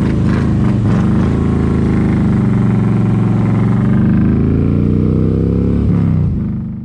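Motorcycle engine pulling away and accelerating, its pitch rising through the gears and dropping at the shifts. The sound fades out near the end.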